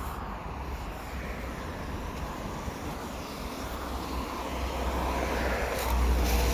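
Rumble of passing traffic with wind buffeting the microphone, swelling to its loudest about six seconds in.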